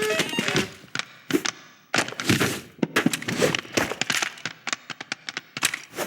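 Animated-film foley of toys scuffling: a dense run of sharp clicks, knocks and rustling scrapes, ending in a quick string of short ticks.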